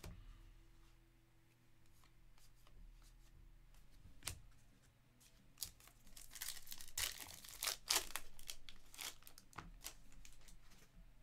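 Foil wrapper of a Panini Revolution basketball card pack being torn open and crinkled by hand. A single tap comes about four seconds in, the tearing and crackling is densest from about six to eight seconds in, and a few scattered crinkles follow.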